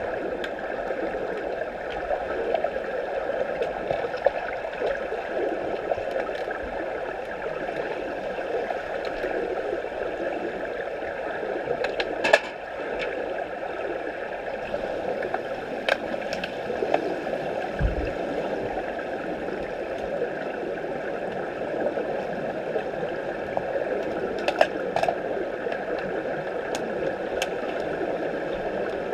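Swimming pool heard underwater: a steady wash of water and bubble noise, with scattered sharp clicks, the loudest about twelve seconds in, and a short low thump about eighteen seconds in.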